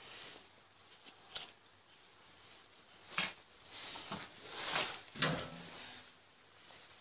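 Handling noises: a sharp click about a second in, then a couple of knocks with a longer scraping rustle between them around the middle.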